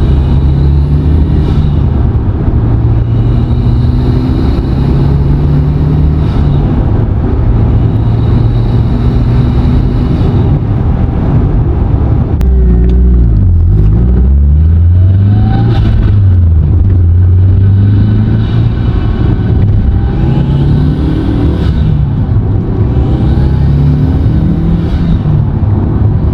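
Mitsubishi Lancer Evolution V's turbocharged 4G63 four-cylinder pulling hard through the gears with an HKS cold air intake fitted: the engine note climbs and drops at each shift, about six pulls, with a dip and rise about halfway through. A faint high whistle rises with each pull.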